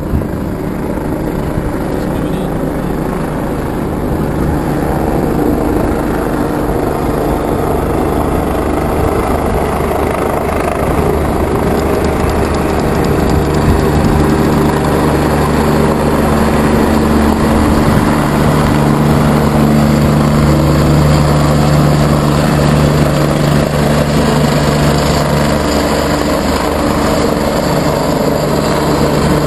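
U.S. Army UH-72 Lakota twin-turbine helicopter approaching, its rotor and engine sound growing steadily louder as it closes in. A steady low hum strengthens from about halfway through.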